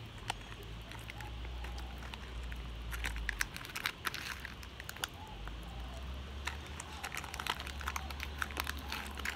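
Plastic candy wrapper being handled, crinkling and crackling. The crackles come in clusters about three to four seconds in and again through the second half, over a low rumble.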